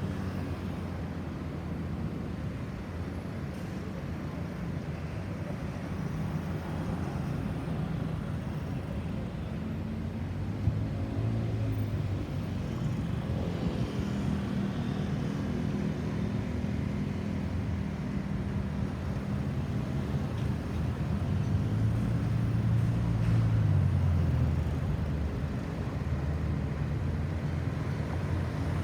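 Road traffic: vehicle engines running with a steady low hum, swelling louder for a couple of seconds a little after two-thirds of the way through as a vehicle draws close. No siren wail stands out.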